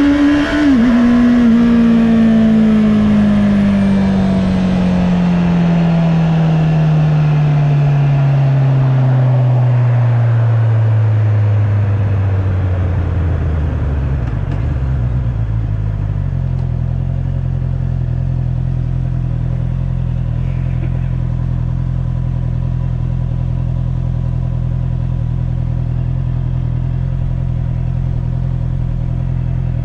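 Honda CB650R's inline-four engine heard from onboard: the revs climb briefly, then fall slowly and evenly for about fifteen seconds as the bike slows. The engine then settles into a steady low note for the rest.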